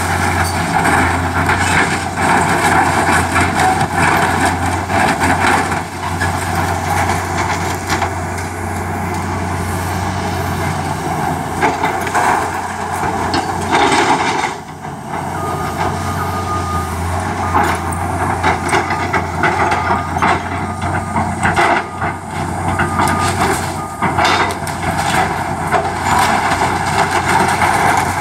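Tracked hydraulic excavator running under load, its diesel engine humming steadily while the bucket crunches and breaks wooden framing and debris with repeated cracks and crashes. A high intermittent beeping comes and goes in the second half.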